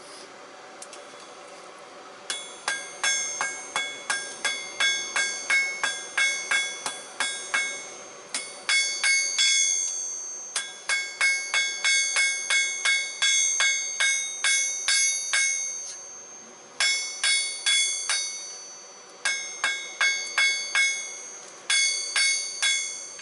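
Hand hammer striking hot steel on an anvil, forging a knife blade from an old file: runs of blows about two to three a second, each with a bright metallic ring, broken by short pauses.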